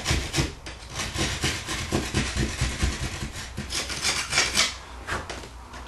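Drywall saw (jab saw) rasping against the cut edge of gypsum sheetrock in quick, short back-and-forth strokes, shaving the hole a hair bigger.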